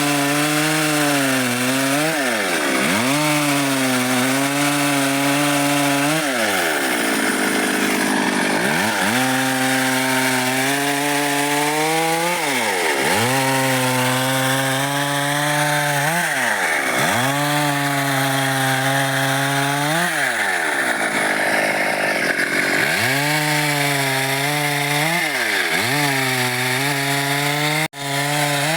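Stihl MS 382 two-stroke chainsaw cutting dry wood. The engine is held at high revs under a hiss of chain through wood, then drops back and revs up again, about nine times. The sound cuts out briefly near the end.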